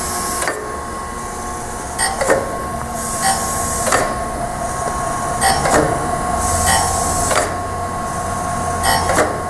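Acer AGS-1020AHD automatic surface grinder running: a steady whine from the wheel spindle and hydraulics, a knock about every one and a half to two seconds as the hydraulic table reverses, and bursts of high hiss in between.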